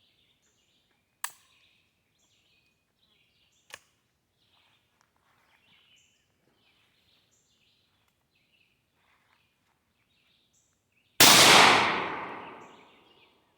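A single shot from a 20-gauge single-shot shotgun about eleven seconds in: one loud blast whose echo dies away over about two seconds. It is preceded by two sharp clicks a few seconds apart, with faint bird chirps in between.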